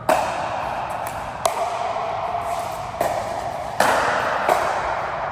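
Rally of racket strikes on a ball: five sharp hits spaced roughly one to one and a half seconds apart, over steady room noise.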